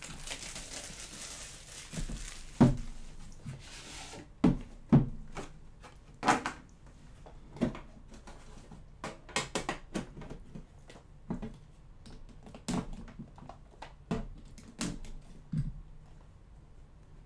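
Plastic shrink wrap rustling and tearing off a sealed trading-card box for the first few seconds, then a run of light knocks and clicks as the box and its contents are opened and handled.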